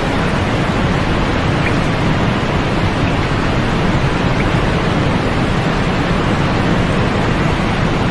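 Steady white noise played for sleep: an even, unchanging hiss, fuller in the low and middle range than at the top.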